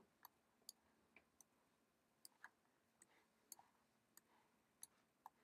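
Near silence with about a dozen faint, irregular computer mouse clicks.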